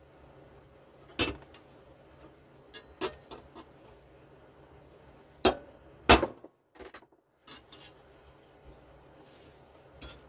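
Hammer striking a steel punch to peen the rivets of a replacement sprocket nose on a chainsaw bar, mushrooming them to lock the tip in. A handful of sharp, irregularly spaced metal strikes with lighter taps between, the loudest about six seconds in.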